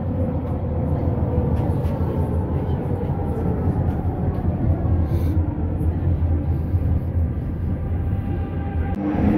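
Expo Line SkyTrain car running along its elevated guideway, heard from inside the car: a steady low rumble with a faint whine above it.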